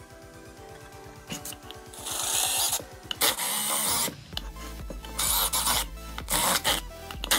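Cordless drill boring into a wooden cutting board in several short, harsh bursts, the longest about a second, over background music with a steady beat.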